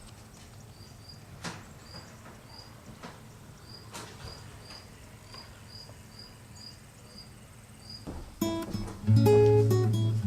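A steady series of short, high chirps, a few per second, over a quiet outdoor background, with two faint knocks. About eight seconds in, strummed acoustic guitar music comes in and becomes much the loudest sound.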